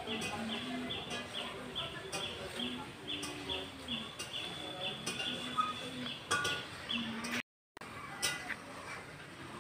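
Birds calling outdoors: a short high chirp repeats about three times a second, over lower clucking calls from hens. A brief total dropout about three quarters of the way through.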